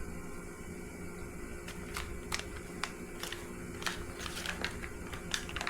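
Irregular light clicks and crinkles of the Fiber Weld kit's packaging and wrap being handled, starting about two seconds in, over a steady low hum.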